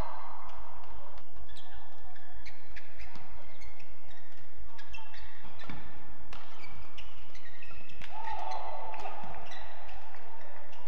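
Badminton doubles play on an indoor court: sharp smacks of rackets hitting the shuttlecock and short squeaks of shoes on the court mat. There is a loud shout at the start and another about eight seconds in, each falling in pitch.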